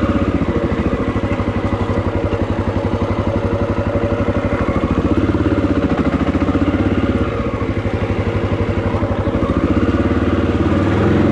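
Honda XR650L's single-cylinder four-stroke engine running as the bike is ridden, its note shifting about halfway through and again near the end.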